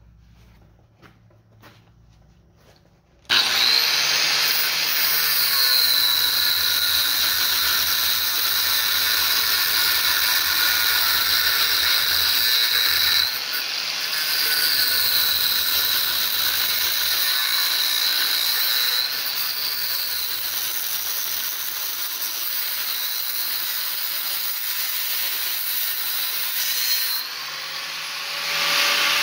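Angle grinder with a cut-off wheel cutting through the copper bars of a large armature. It starts suddenly about three seconds in, after a few faint clicks, and runs loud from then on. Its high whine dips and recovers several times as the wheel bites into the metal.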